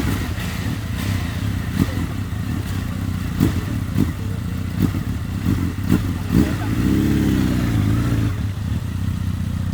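Police motorcycle engines just started and idling steadily, with several short sharp knocks, and a brief rise and fall in engine pitch about seven seconds in.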